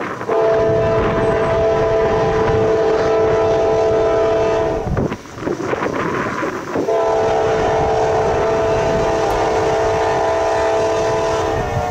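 Norfolk Southern diesel freight locomotive's multi-note air horn sounding two long blasts, each about four and a half seconds long, with a break of about two seconds between them, over the low rumble of the approaching train and wind on the microphone.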